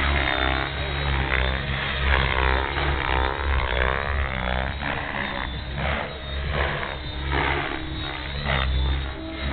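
Blade 700X electric RC helicopter flying 3D aerobatics: the whine of its motor and rotor rises and falls in pitch as the throttle and blade pitch change, with a choppier rotor sound in the second half.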